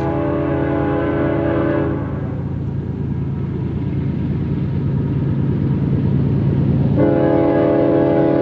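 Approaching Union Pacific GE C45ACCTE diesel locomotive sounding its chime air horn. One long blast ends about two seconds in and another starts near the end. Under the horn, the low, steady drone of the diesel engines grows louder as the train nears.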